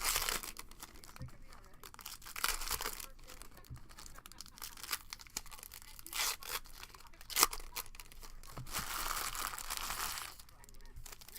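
Trading card pack wrappers being torn open and crinkled by hand, in several bursts of tearing and rustling, with one sharp snap of a tear near the middle.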